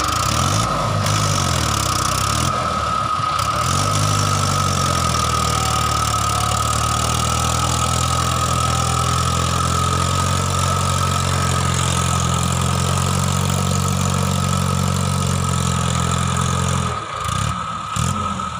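Mahindra 555 DI tractor's diesel engine running, its speed rising and falling over the first few seconds and then holding steady. Near the end the engine speed drops briefly and picks up again. A steady high whine runs along with it.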